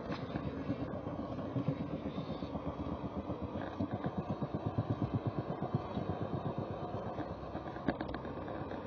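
Model train rolling along the track, heard from the camera car riding on it: a steady rumble of wheels and motor with rapid, uneven clicking as the wheels run over rail joints and points, thickest in the middle of the stretch.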